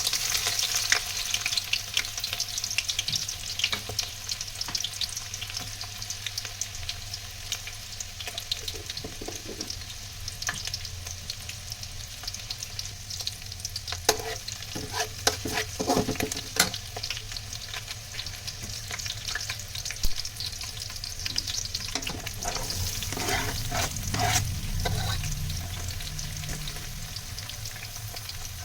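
Food frying in a pan, a steady sizzle full of small crackles, stirred now and then with clusters of louder spatula strokes about halfway through and again near the end.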